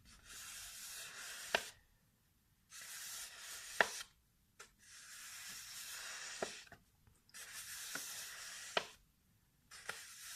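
Paper being rubbed close to the microphone in slow strokes of one to two seconds, separated by short pauses, with a few sharp snaps or crackles in the strokes.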